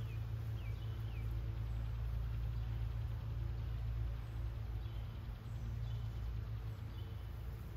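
Honeybees buzzing around an open hive, a steady low hum, with a bird chirping a few times, short falling chirps in the first second and more near the end.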